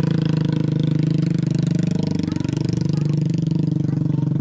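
Small moped engine running at low revs close by, a steady rapid putter that wavers only slightly in pitch.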